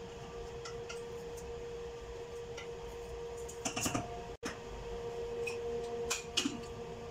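A wooden spatula stirs thick daal in an aluminium pressure cooker, with a few knocks and clinks against the pot, over a steady hum. After a brief break near the middle there is another short cluster of metal clinks around the closed cooker.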